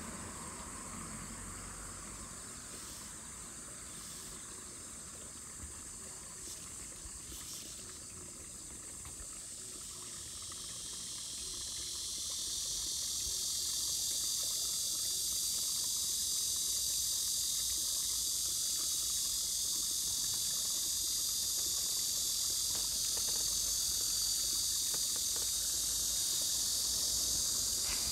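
High-pitched insect chorus that swells louder from about ten seconds in and then holds steady.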